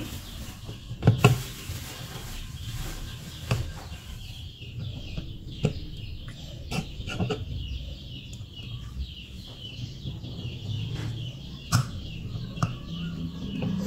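Bird calls, like clucking fowl, run steadily in the background. Sharp clicks and taps from handling the amplifier board and soldering tools come several times, the loudest about a second in and near the end.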